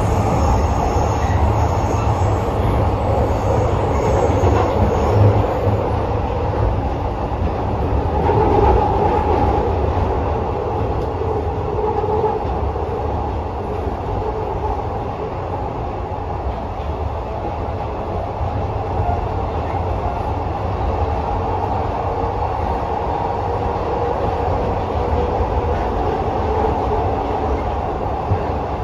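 Glasgow Subway second-generation train running through the tunnel between stations, heard from inside the carriage: a steady low rumble of wheels on rail and traction motors.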